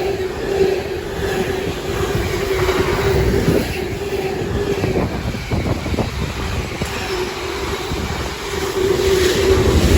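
A freight train's wagons rolling past at speed: a steady rumble with a steady tone over it, and wheels clicking over rail joints about halfway through.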